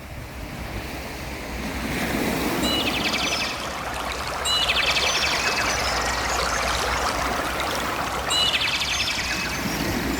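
Sea waves washing against the shore, a steady rush that builds over the first couple of seconds. A short, rapid high trill sounds three times over it, about 3, 5 and 8.5 seconds in.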